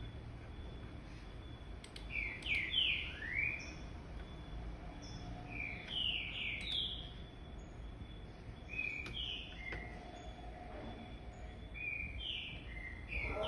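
A bird chirping in four groups of three or four quick chirps, a group every three seconds or so.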